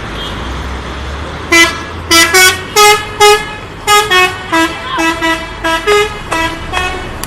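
Indonesian bus telolet horn playing a tune: a run of about fourteen short, loud, pitched horn blasts starting about one and a half seconds in, over a low vehicle rumble.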